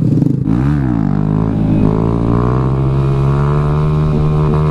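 Single-cylinder motorcycle engine under riding load: a quick throttle blip about half a second in, then steady running with the revs slowly climbing.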